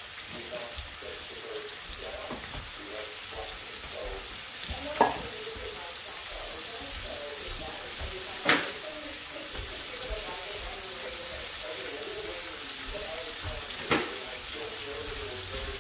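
Snow peas sautéing in hot oil in a skillet, a steady sizzle, broken three times by a sharp knock, about five, eight and a half and fourteen seconds in.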